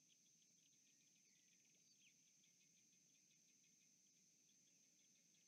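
Near silence: a faint, steady, high-pitched insect chorus from the bush, with scattered small chirps and ticks and one short chirp about two seconds in.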